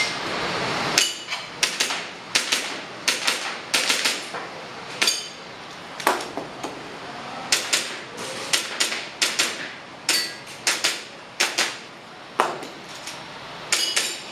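An airsoft pistol firing a long string of sharp shots in an IPSC-style course of fire. The shots come in quick clusters of two or three, with short pauses between groups, beginning about a second in. Some shots are followed by a brief ringing.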